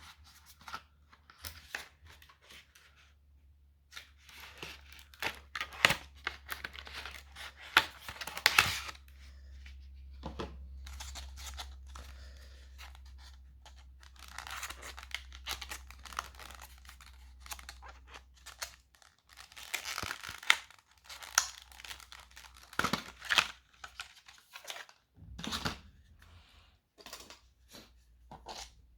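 Packaging being torn and crinkled, with irregular rustles and clicks of handling, as the new SSD is taken out of its wrapping.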